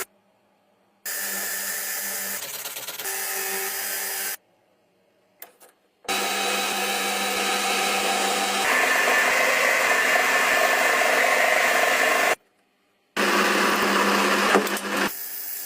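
A small electric motor running with a steady whir in three separate stretches, each starting and stopping abruptly. The middle stretch is the longest and gets louder and rougher about two-thirds of the way through.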